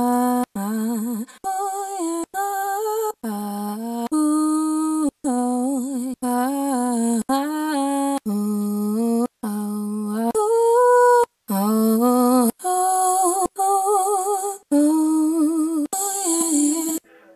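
A string of short a cappella vocal chop samples played one after another, about one a second: each is a single sung note on an open vowel, some with vibrato, with a brief silence between them.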